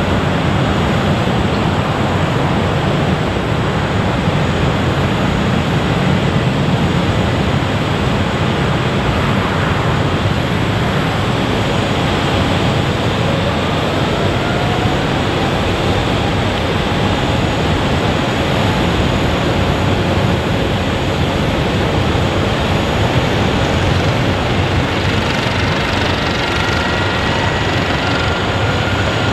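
Jet airliner engines running with a steady loud roar, with faint turbine whines gliding upward in pitch partway through and again near the end.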